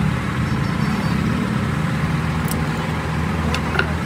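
Mercedes truck's engine running steadily at a low, even speed, with a couple of light clicks near the end.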